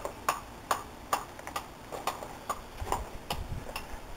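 Footsteps, about two a second: a steady run of sharp steps.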